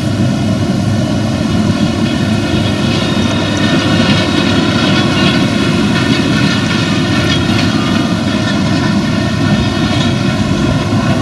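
Claas Arion tractor's diesel engine running steadily under load as it pulls a Claas Quadrant 2200 large square baler, mixed with the baler's working machinery.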